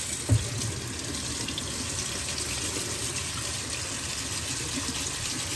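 Water running steadily from a tap into a sink, with a light knock about a third of a second in.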